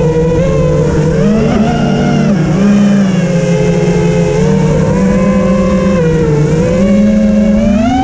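A motor vehicle's engine running at a fairly steady speed, its pitch dipping and rising a little and starting to climb near the end as it speeds up.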